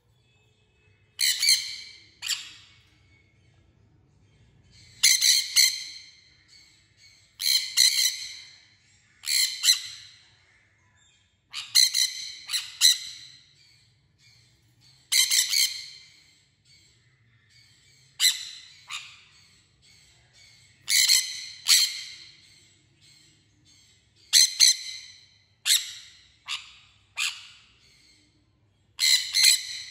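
Sun conures screeching: about two dozen short, shrill calls, often in quick pairs or threes, with pauses of a second or two between bouts.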